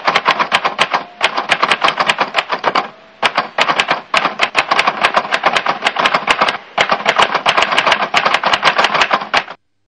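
Rapid typewriter key clicks, several a second, in runs broken by short pauses, stopping shortly before the end.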